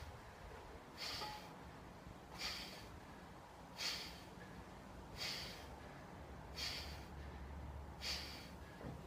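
A man's short, sharp breaths, six of them about a second and a half apart, one with each pull of a set of bent-over barbell rows.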